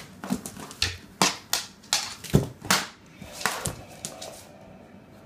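A white Boxer puppy's claws and paws clattering on a hardwood floor as it pounces and scrambles: about ten sharp, irregular clicks and knocks, one a heavier thump, dying away after about four seconds.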